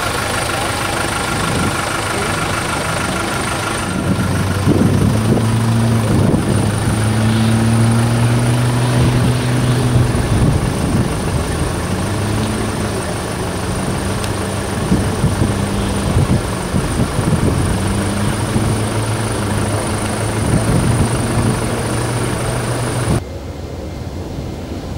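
Tracked armoured vehicles driving: a steady low engine drone with frequent clanking knocks. For the first few seconds a lighter vehicle engine idles, and near the end the sound cuts to a quieter rushing noise.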